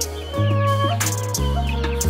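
Background music with a held bass line and regular percussion hits. Young chickens chirp faintly over it.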